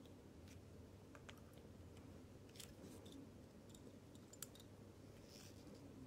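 Faint, scattered light clicks of steel tweezers touching the metal parts of a Ricoh automatic watch movement as a bridge is lifted off, the sharpest about four seconds in, over a low steady hum.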